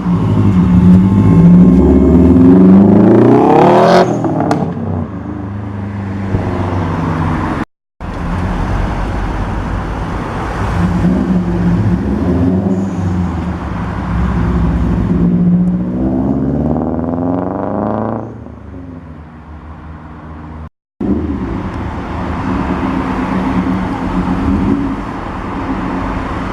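Tuned 2015 Subaru WRX STI's turbocharged flat-four engine, loud, revving up with a rising pitch that cuts off sharply about four seconds in, then rumbling at low revs. It rises and falls again about two-thirds of the way through. The sound drops out briefly twice. The car is remapped for pops and crackles on the overrun.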